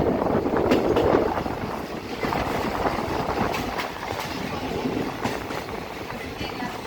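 Passenger train running on the line, a steady rumble with the wheels clicking over rail joints at irregular intervals.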